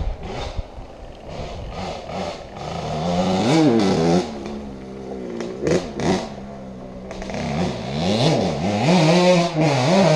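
Small 125cc engine on a home-built quad, loud, revving up and down several times, its pitch climbing and dropping and then held high near the end.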